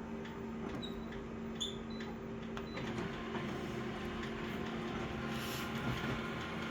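Office photocopier running through a copy: a steady motor hum, a few light clicks, then a louder mechanical whirr that sets in about three seconds in and keeps going.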